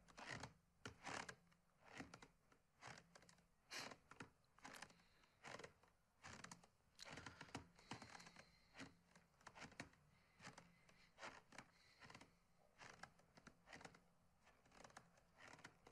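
Near silence broken by faint, irregular small clicks and knocks, spread unevenly with several close together at times.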